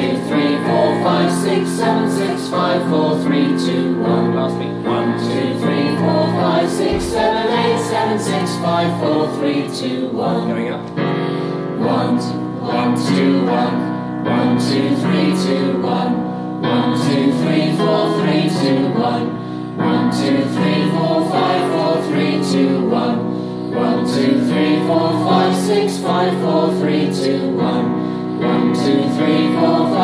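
A mixed choir of men's and women's voices singing a vocal warm-up exercise, accompanied by a digital piano.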